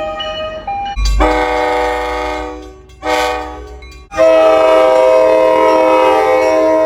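Train horns sounding in a run of separate blasts, each a chord of several notes: one starting about a second in over a low rumble and fading, a short one about three seconds in, and a long, loud one held from about four seconds in.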